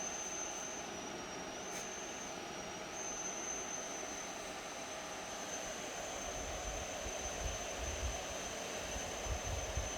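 Dyson Pure Hot+Cool HP04 purifying fan heater running with a steady, high-pitched whistle over the rush of its airflow; the whistle's pitch sags briefly twice in the first few seconds. A few low bumps come near the end.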